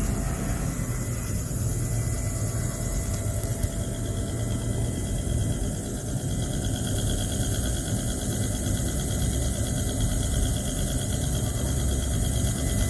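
Benchtop magnetic stirrer's motor running steadily, spinning a stir bar in a beaker of solution: a steady low hum with a thin high tone.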